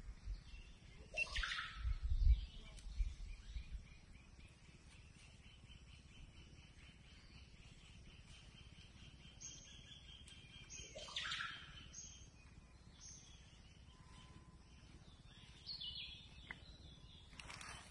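Forest birds calling: a few short high chirps and two louder sweeping calls over a faint steady high trill. Low thumps sound in the first few seconds.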